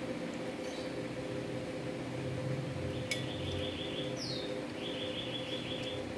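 Liquid poured in a thin stream into a ceramic bowl of dessert, over a steady low hum. Two short high, rapidly pulsing chirps come about three and five seconds in, with a brief falling whistle between them.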